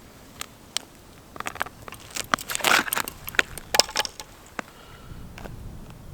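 Irregular sharp clicks and short crunches, most of them between about one and a half and four seconds in, over a faint steady hiss.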